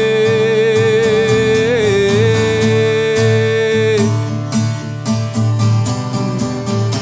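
Parlour acoustic guitar strummed steadily under one long held sung note with vibrato, which bends in pitch about two seconds in and ends about four seconds in; the guitar strumming carries on alone after.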